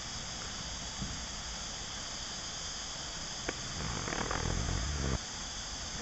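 A chorus of cicadas makes a steady, high-pitched hiss throughout. Just before the middle there is a single click, followed by a low rumbling noise lasting about a second and a half that cuts off suddenly.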